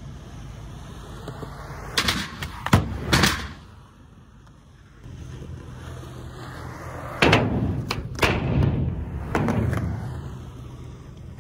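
Skateboard wheels rolling on concrete, with sharp clacks and slaps of the board popping and landing in two groups: three about two to three seconds in, then four more between about seven and ten seconds in.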